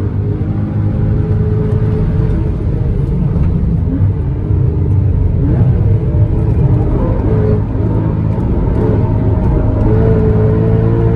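Porsche Cayman S (981) flat-six engine running hard at speed, with its pitch mostly steady, shifting briefly a few times and rising near the end.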